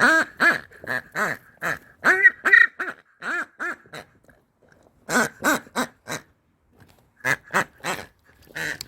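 Dogs barking in play: short, hoarse barks several a second, in three bursts with brief pauses between them.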